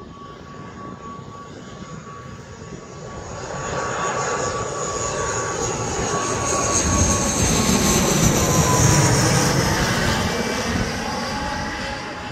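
ATR 72-600 turboprop airliner flying past low on landing approach, its two Pratt & Whitney PW127 engines and propellers running. The sound grows louder, is loudest about two-thirds of the way through, then fades, with a whining tone that drops in pitch as it goes by.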